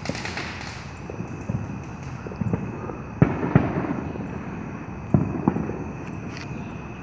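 Consumer fireworks going off: a crackling burst at the start, then sharp bangs about three seconds in and again near five seconds. The bang about three seconds in is the loudest.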